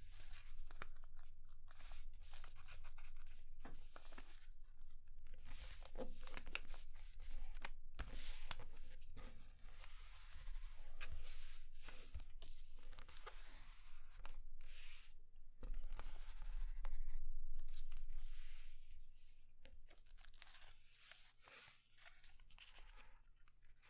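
A sheet of paper rustling, sliding and crackling under the fingers as it is folded and creased into a paper airplane. It comes in irregular bursts and is busiest about two-thirds of the way through, over a faint steady low hum.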